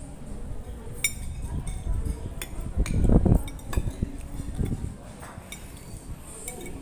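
Spoon and fork clinking and scraping on ceramic plates while eating, a scatter of short sharp clinks. A louder, low, muffled bump comes about three seconds in.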